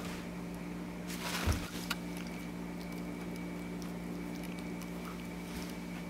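A dog shuffling among its toys: light patter and small clicks, with one short rustle about a second and a half in.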